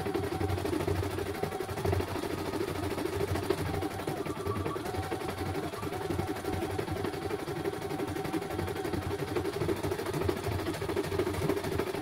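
CNY E900 computerised embroidery machine stitching a design: a fast, steady needle rattle from the running machine, with short whining tones coming and going now and then.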